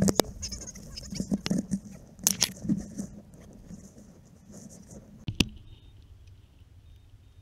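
Hang-glider harness and hang-point hardware being handled: nylon fabric rustling with scattered sharp clicks and clinks of metal clips and karabiners. The sharpest click comes about five seconds in, and the handling quietens after it.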